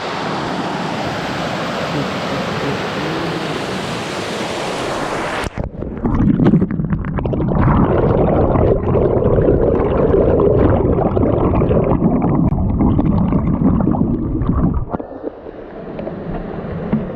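Waterfall rushing over rocks, a steady hiss. About five seconds in it changes abruptly to a louder, duller rush, which eases off near the end.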